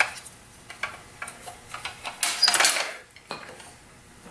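Small metal clicks and clinks of hand tools on engine parts, with a louder metallic clatter about two seconds in, as the power valve linkage arm is worked out of a two-stroke dirt bike engine.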